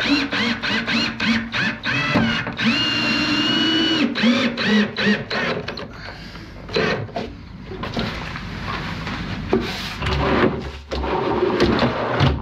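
Cordless drill running in a string of short trigger bursts, then one longer run of about a second and a half, driving screws into a wooden drawer. Near the end the drawer slides shut on its metal drawer runners with a low rumble.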